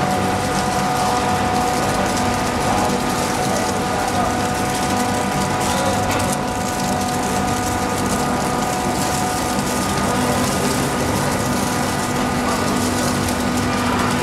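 Flake ice machine running steadily: a mechanical hum of several steady tones under a dense crackle of ice flakes being scraped off and dropping onto the pile below.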